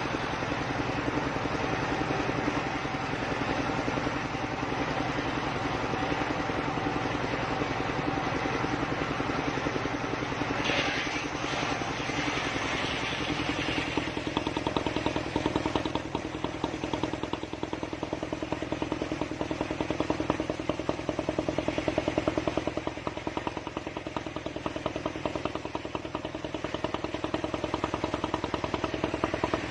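Engine-driven circular saw rig running steadily with a fast, even engine beat, and a brief harsher rasp about eleven seconds in as the blade works the log.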